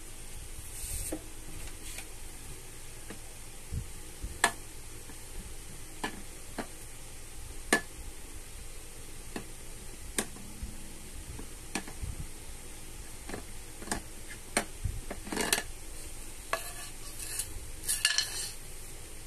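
Cats playing on a hard floor: scattered light clicks and taps, a few seconds apart, and a couple of brief scuffling rustles near the end, over a steady hiss.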